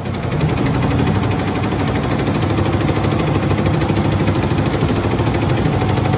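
Tajima multi-head embroidery machine stitching at full speed: a fast, steady clatter of needle strokes that rises in over the first half second, then holds even.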